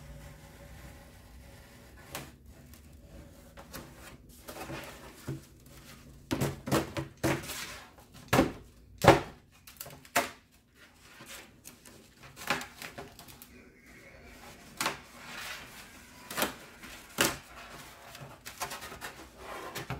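Box cutter slicing through a white board to cut out a circle: a run of short, irregular scraping strokes, loudest in a cluster about six to nine seconds in.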